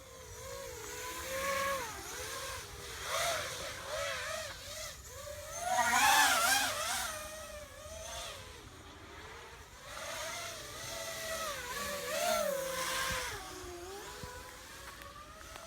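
Brushless motors and propellers of a Vortex 250 FPV quadcopter whining, the pitch rising and falling constantly with the throttle, loudest about six seconds in.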